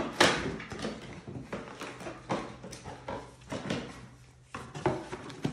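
Cardboard boxes and packaging being handled: a quick run of rustles, scrapes and light knocks as items are pulled out of a shipping box, with a short lull about four seconds in.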